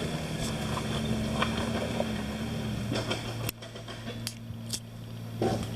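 Jeep engine idling steadily, with scattered light clicks and knocks; the sound changes abruptly about three and a half seconds in.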